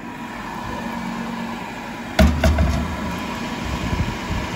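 Emeril Lagasse Power Air Fryer 360 XL running, its convection fan making a steady hum, with a thump and a brief low rumble about two seconds in.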